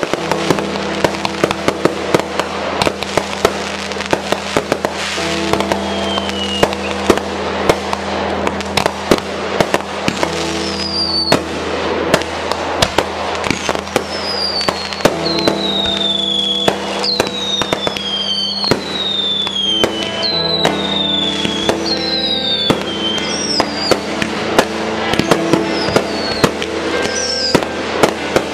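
Fireworks display: rapid bangs and crackling bursts going off continuously, with a string of falling whistles from about ten seconds in. Music with sustained chords plays underneath.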